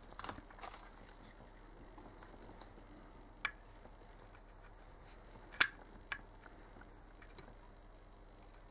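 Soldering work on a car engine-control-unit circuit board: a few light clicks and taps of the tools, the sharpest about five and a half seconds in, over a faint low hum.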